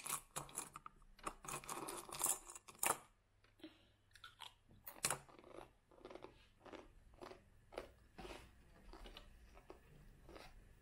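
Small plastic packaging crinkling and tiny plastic toy pieces clicking as they are handled, in an irregular run of quick crackles and ticks.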